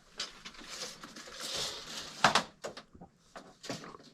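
Irregular handling noise: scattered knocks and rustling, with one louder knock a little over two seconds in.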